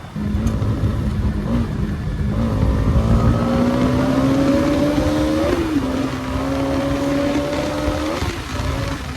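Bajaj Pulsar NS200 BS6's single-cylinder engine pulling under way, getting louder just after the start. Its pitch climbs steadily, then drops about halfway through and again near the end as gears change.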